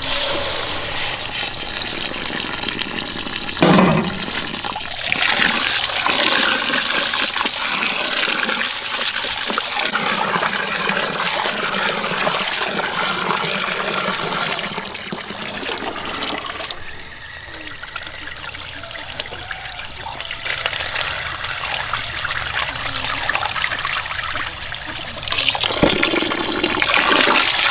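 Tap water running steadily into a large aluminium pot as rice is washed in it by hand, a continuous splashing gush. A single knock sounds about four seconds in; the water is quieter in the second half and louder again near the end.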